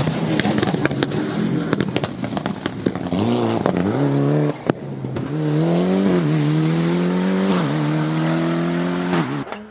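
Rally car engine at full throttle with sharp crackling pops from the exhaust. The revs climb, drop sharply as it shifts or lifts a little past the middle, climb again and hold, then fall away near the end.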